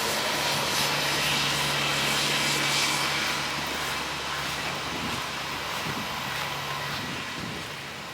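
A steady engine drone, loudest over the first three seconds and then slowly fading away.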